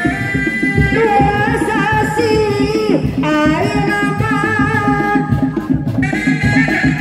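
Seni Reak street music: a set of dog-dog drums beating a fast, dense rhythm under a wavering high melody of held notes that changes pitch every second or two and breaks off briefly about three seconds in.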